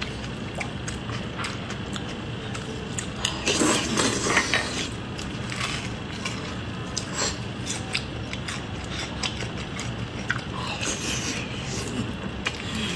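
Close-miked eating: wet chewing of soft meat in oily chili sauce, with many small mouth clicks and smacks. The mouth noise grows louder about four seconds in and again near the end.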